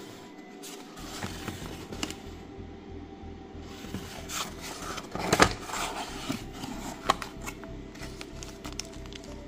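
Background music with a steady beat, over a small cardboard mailer box being handled and opened: cardboard scraping and rustling, with a sharp snap about five and a half seconds in as the lid comes open and a click about a second later.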